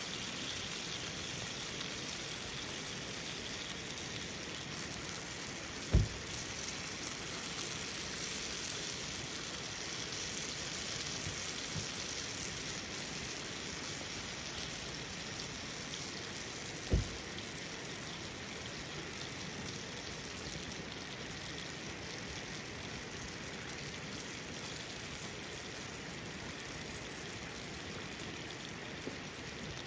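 Steady, even hiss like falling rain, with two brief dull thumps, about six and seventeen seconds in.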